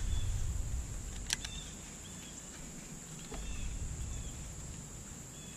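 Steady high insect buzzing from the shoreline trees, with short high chirps scattered through it. A low wind rumble on the microphone fades out over the first second or so.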